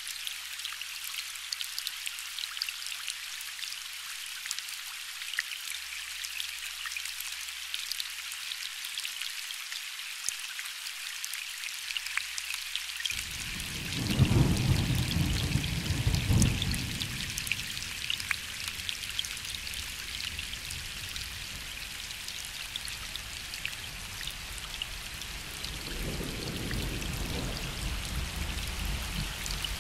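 Gentle rain falling steadily, with a fine patter of drops. A little before halfway a distant roll of thunder begins, swells twice and fades away, and another low rumble of thunder builds near the end.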